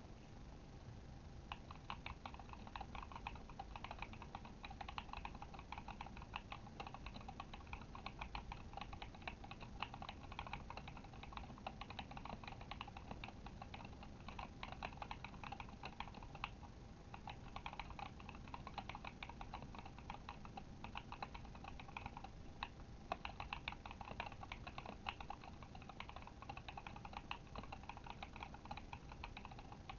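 Continuous typing on a Kemove Shadow mechanical keyboard with Glorious Panda tactile switches: a dense, uneven patter of key clacks, starting about a second and a half in, with a couple of brief pauses along the way.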